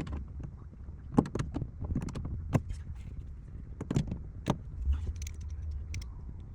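Irregular clicks, clinks and knocks of hand tools and parts being handled during car interior disassembly, over a steady low rumble.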